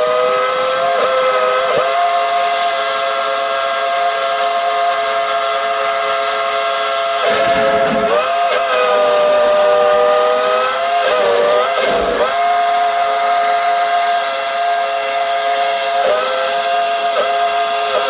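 Southern three-chime steam whistle on steam locomotive No. 70, held open and quilled by the engineer to play a tune: a loud sustained three-note chord that bends and slurs in pitch several times, over a hiss of steam.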